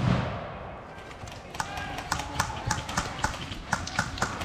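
A rapid burst of airsoft gunfire ends right at the start. Then come irregular sharp clicks, several a second, with faint short calls in the background.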